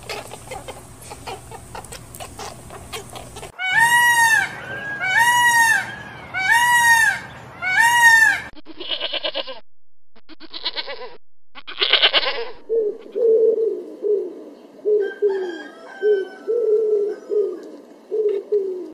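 A string of different farm-animal calls. It starts with four evenly spaced calls that rise and fall in pitch, each about a second long. Then come three short harsh bursts, and last a quick run of short low notes.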